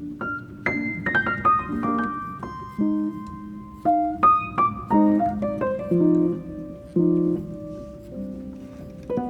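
Background music: piano playing chords and single notes at a moderate pace.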